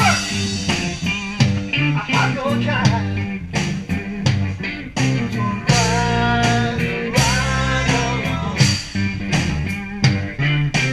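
Rock music with guitar over a bass line and a steady drum beat.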